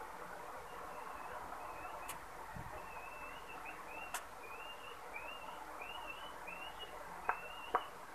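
Faint bird chirping: a run of short rising notes, about two a second, over a steady background hiss. A few sharp clicks cut in, two of them close together near the end.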